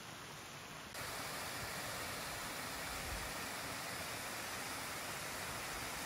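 Water of a mountain stream cascading down stepped concrete weirs: a steady rushing hiss that becomes louder about a second in.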